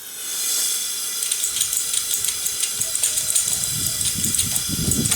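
Single-burner Devil's Forge gas forge burner lit and running: a hiss that comes on suddenly and stays steady, with faint crackling, and a low rumble building in from about a second and a half in as the forge is brought up to forge temperature.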